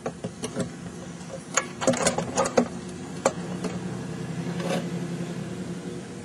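Small two-stroke gas engine of an RC monster truck idling steadily, with a series of sharp clicks and rattles in the first few seconds as the truck is handled.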